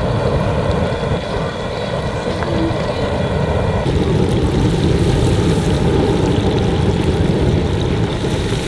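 Outdoor propane fryer burner running with a steady rush under a large pot of hot oil, the oil bubbling around frying cornmeal-battered fish. The sound grows louder about four seconds in.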